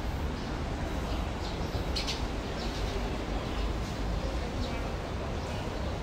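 Caged songbirds giving scattered short, high chirps over a steady low background rumble.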